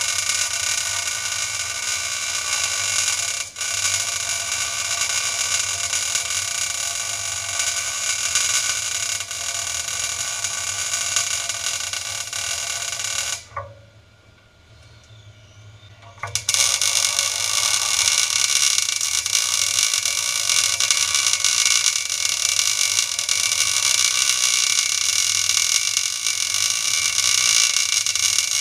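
CNC plasma cutter arc running: a steady loud hiss with a high whine. It cuts out for about three seconds midway, then starts again.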